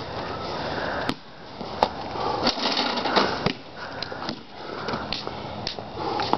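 Basketball bouncing on a concrete driveway, several sharp bounces spaced under a second apart, with rustling noise between them.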